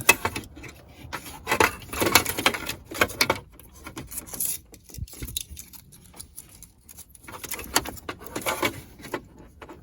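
Plastic clicks and rattles of a car stereo's wiring-harness connectors and head unit being handled and unplugged, with a sharp click at the very start and bursts of clattering through the rest.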